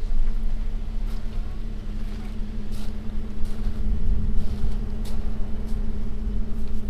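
Motor vehicle engine running steadily: a low, even drone with a constant hum, and a few faint clicks over it.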